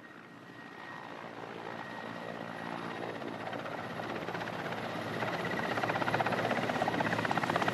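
Helicopter approaching, its engine and rotor noise growing steadily louder, with a fast, even rotor chop that becomes more distinct in the second half.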